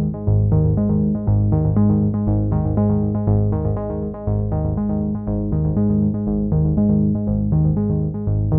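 Background music: a synthesizer and keyboard track with a steady, repeating pulse and bass line.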